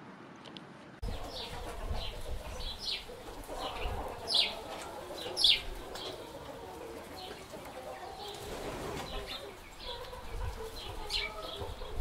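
A brood of quail chicks peeping: many short, high cheeps begin about a second in, with two sharper falling peeps standing out near the middle, over a low rumble.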